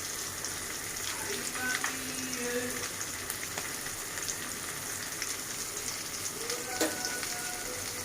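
Hilsa fish pieces frying in hot mustard oil in a kadai: a steady sizzle with scattered crackles and pops, one sharper pop about seven seconds in.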